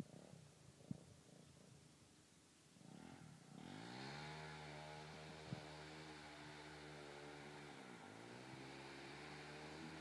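A faint, distant motorcycle engine that comes in about three seconds in and then runs steadily. Its pitch drops briefly and climbs again about eight seconds in.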